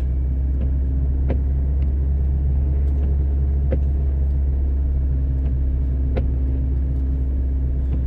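Car driving on a snow-covered road, heard from inside the cabin: a steady low rumble of engine and tyres, with a few faint clicks.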